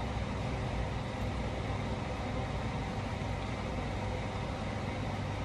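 Steady low hum with a hiss above it, unchanging: constant background room noise.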